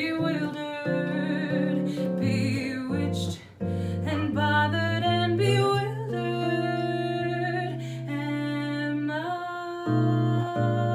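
Female voice singing a slow ballad with vibrato over an electric bass playing low notes and chords, with a long held note from about six to nine seconds in.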